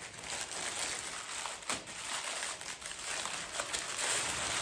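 Gift wrapping crinkling and rustling as it is unwrapped by hand, with a few sharper crackles, one standing out nearly two seconds in.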